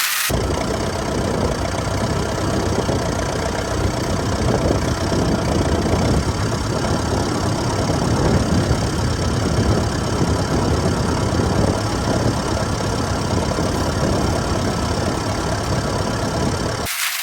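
Tractor engine running steadily under load while pulling a plough, cutting in abruptly just after the start and cutting out abruptly near the end.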